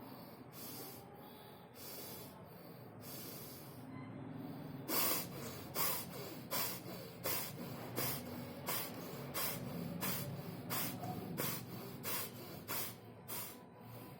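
Bhastrika (bellows) breathing through one nostril: short, hissing nasal inhales and exhales in a steady rhythm. They are faint at first, then about five seconds in turn louder and quicker, about two strokes a second.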